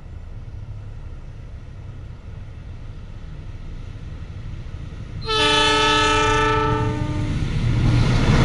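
Horn of an approaching Indonesian Railways (KAI) diesel locomotive: one blast of several notes sounded together, about two seconds long, starting about five seconds in and the loudest sound. Under it the locomotive's diesel rumble grows as the train with its passenger coaches draws near, becoming a louder rolling rush near the end.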